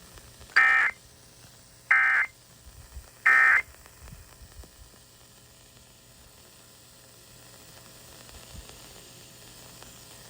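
Three short bursts of Emergency Alert System SAME data tones, the buzzing digital end-of-message code, sent about a second and a half apart to mark the end of the warning broadcast; a faint steady hiss follows.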